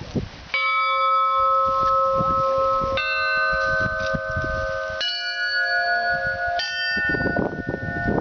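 Church bells rung one at a time in a slow Russian Orthodox peal (perezvon): four strikes about two seconds apart, each on a different bell, each ringing on until the next is struck.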